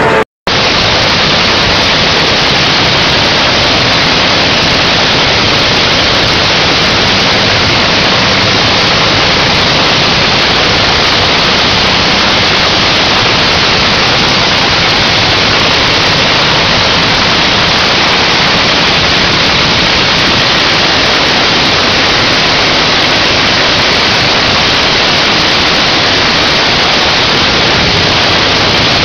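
Nitro-burning supercharged Top Fuel Hemi engine running during a pit warm-up, so loud that the microphone is overloaded: a steady, harsh static-like din with no distinct engine note. The sound drops out for an instant right at the start, then holds unchanged.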